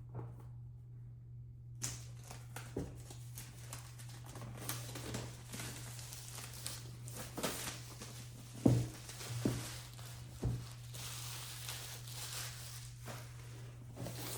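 Packaging being torn and crinkled as a keyboard box is opened by hand, with a few sharp knocks of the box being handled about two-thirds of the way through, over a steady low hum.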